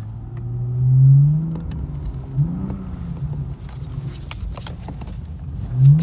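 BMW 435i xDrive's turbocharged N55 inline-six revving hard, heard from inside the cabin, while the car is powered sideways through a corner on snow. The revs climb about a second in, rise and fall quickly around the middle, and jump again near the end. Light scattered clicks run underneath.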